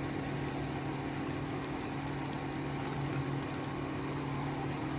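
Hot ghee tadka of fried garlic, dried red chillies and cumin sizzling with light crackles as it is poured onto cooked dal, over a steady low hum.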